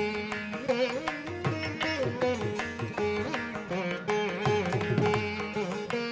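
Instrumental background music in Indian classical style: a plucked string melody with sliding notes over a steady drone, with regular plucked and struck beats.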